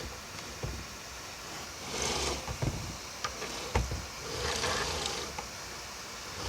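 Handling noise around the opened Thrustmaster TMX wheel base: a few light clicks and taps, with soft swells of rustling about two seconds in and again near the end.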